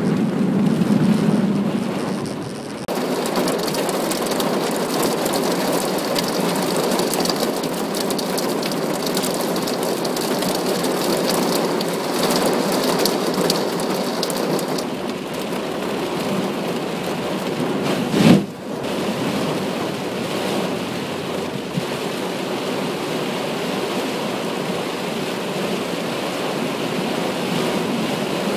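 Heavy rain hitting the roof and windshield of a 2012 Mitsubishi Lancer, heard from inside the cabin as a steady rushing noise. One sudden loud burst comes about eighteen seconds in.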